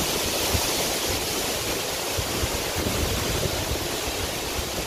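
Hurricane-force wind rushing steadily, with gusts buffeting the microphone in low rumbles.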